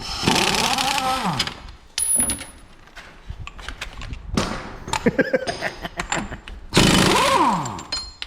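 Pneumatic impact wrench run in two long bursts, the first at the start and the second near the end, its pitch dropping as it works against the nut, with a shorter burst and a few clicks between.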